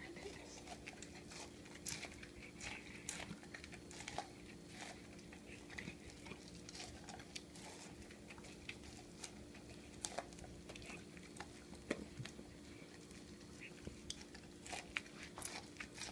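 A Bernese mountain dog chewing corn, with irregular crunches and clicks of teeth on the kernels throughout.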